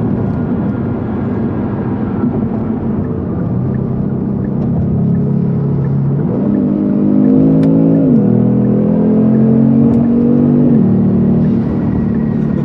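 Kia Stinger GT2's 3.3-litre twin-turbo V6 heard from inside the cabin, accelerating hard. The engine note rises for about two seconds, drops suddenly at an upshift, climbs again, and falls back near the end.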